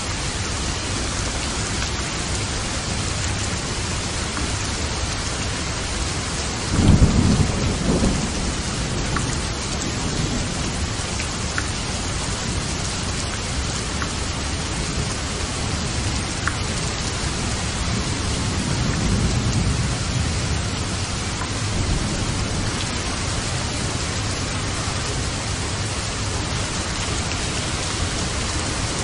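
Steady heavy rain, with a rumble of thunder about seven seconds in and a softer, longer rumble around the middle.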